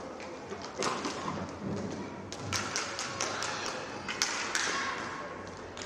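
Inline hockey play in an indoor rink: sharp clacks and taps of sticks on the puck and floor and skates on the rink surface, with the sharpest knocks just after four seconds in, over a steady hall hubbub.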